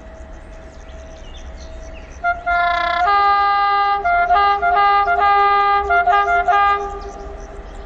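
Electric locomotive hauling tank wagons sounds its horn as it approaches: a short blast, then a long one of about a second, then a run of short blasts. Birds chirp faintly before and after.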